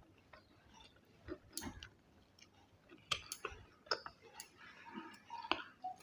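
Faint, close-up chewing and mouth sounds of someone eating a meal: scattered small clicks and smacks, a few louder ones through the middle and later part.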